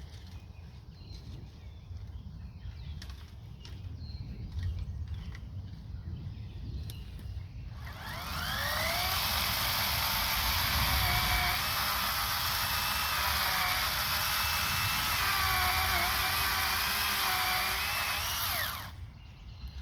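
Electric chainsaw starting with a rising whine about eight seconds in, running for about ten seconds with small dips in pitch, then shutting off suddenly. Before it starts there is only a low rumble.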